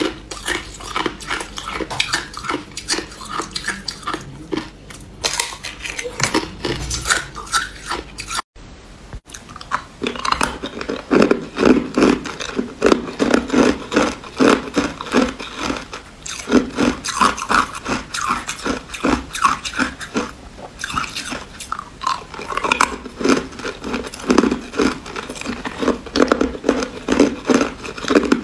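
Ice being bitten and crunched between the teeth, many quick crunches in a row: first a thin sheet of clear ice, then, after a short break about a third of the way in, ice cubes chewed in a steady rhythm.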